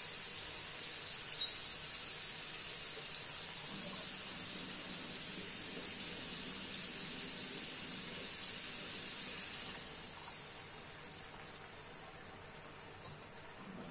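Pan of tofu, meatballs, onion and minced meat sizzling steadily after a little hot water was added. The hiss dies down about ten seconds in.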